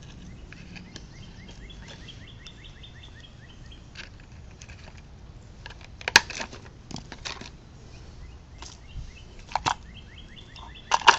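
Sharp clicks and snaps of wire and metal parts being worked loose while an AC adapter is stripped for its copper wire, loudest about six seconds in and again near the end. A bird trills twice in the background, at the start and near the end.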